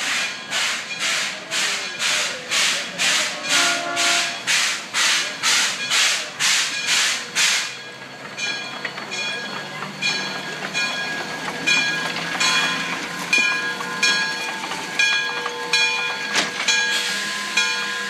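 Lima Shay geared steam locomotive chuffing steadily, about three exhaust beats a second, as it works past. About eight seconds in the chuffing stops and the engine rolls on with clanking from its three-cylinder engine and gear drive and some ringing metallic tones.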